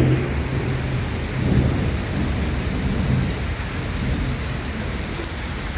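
Thunderstorm: steady rain hiss with a continuous low rumble underneath, swelling slightly for a couple of seconds, and no sharp crack.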